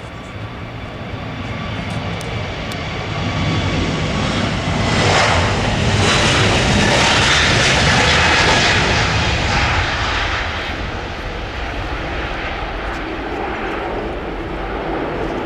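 Jet airliner's engines passing close by, swelling over about five seconds to a loud peak with a high whine over the rumble, then fading.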